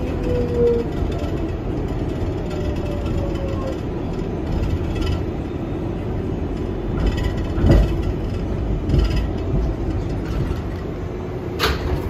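R188 subway train running on the rails, heard from inside the car: a steady rumble with a falling motor whine at the start and several sharp knocks and clacks from the wheels and car body later on.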